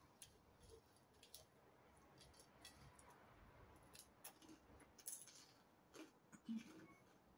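Quiet close-up eating sounds: bread being chewed and fingers licked, heard as scattered soft clicks and mouth smacks over a low hiss.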